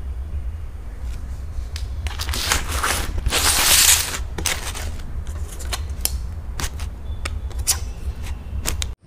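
Handling noise of aluminium foil takeaway trays: scattered clicks and crinkles, loudest in a rustling burst about three to four seconds in, over a steady low rumble.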